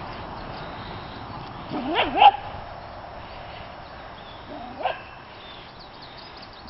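A dog barking during play: two quick barks about two seconds in and one more shortly before five seconds in.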